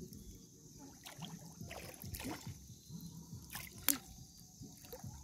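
Shallow seawater sloshing and trickling as someone wades through it, with small scattered splashes and one sharp click about four seconds in.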